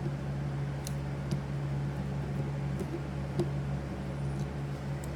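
Steady low hum with a few faint, light clicks from small metal parts and a tool being handled while a pinball score reel is taken apart.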